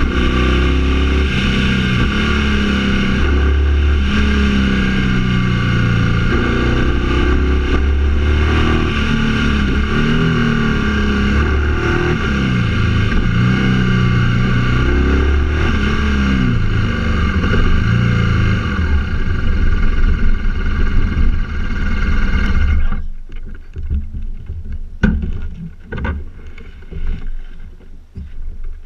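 A vehicle engine runs on the move under a steady rush of wind noise, its pitch rising and falling as it speeds up and slows. About 23 seconds in, the engine and wind noise stop abruptly, and a few knocks follow in the quiet.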